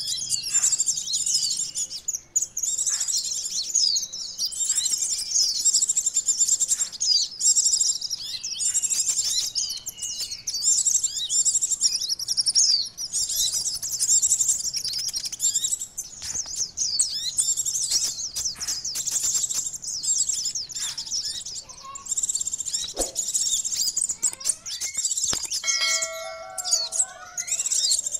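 Kolibri ninja sunbirds calling in a dense, rapid, high-pitched twittering chatter, a bird-lure (pikat) recording of excited, noisy sunbirds. In the last couple of seconds a lower, steadier bird call joins in.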